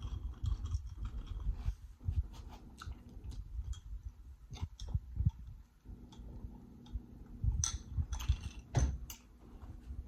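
Close-miked chewing of a mouthful of food, with irregular soft jaw thuds and scattered wet mouth clicks and smacks.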